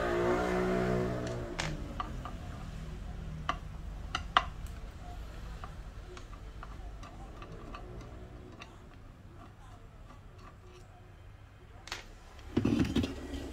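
Scattered sharp metallic clicks and ticks of a screwdriver turning out small screws from the amplifier board's output transistor mounts on a speaker's metal chassis. A low droning hum fades out in the first second and a half.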